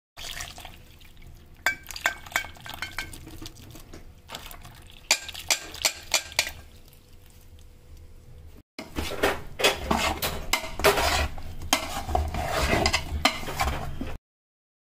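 A metal utensil clinking, knocking and scraping against a metal pot while a crumbly flour and nut mixture is stirred. The first half has scattered sharp clinks, and after a short break about nine seconds in, the stirring is denser and louder.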